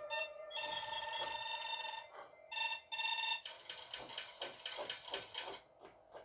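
Electronic beeping and chirping tones from a film's sci-fi photo-enhancement machine (the Esper) as it zooms in on a photograph, in short on-off tone bursts. About halfway through they give way to a quick run of clicking ticks as the image moves.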